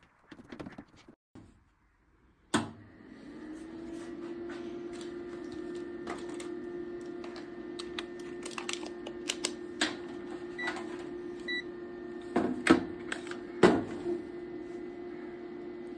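Solar inverter switched on with a click, then running with a steady electrical hum, which marks the repaired unit powering up. Two short high beeps come near the middle, and sharp clicks are scattered throughout.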